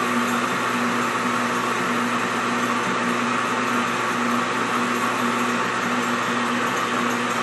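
Small belt-driven bench lathe running at a steady speed under its electric motor, a constant hum, while an abrasive pad is held against the spinning ear cap.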